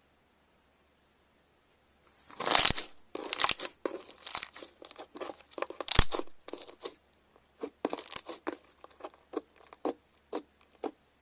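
Slime being squeezed and pulled by hand, giving a run of crisp crackling, crunching and tearing sounds that start about two seconds in. The sounds are loudest near their start and again about six seconds in, then thin out into sparser pops.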